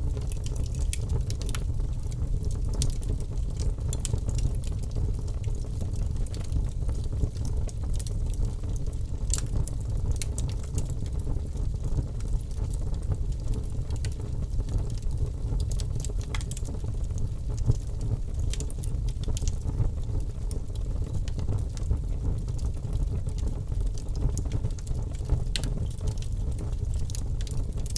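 Wood fire burning in a fireplace: a steady low rumble of flame with frequent sharp crackles and pops scattered throughout.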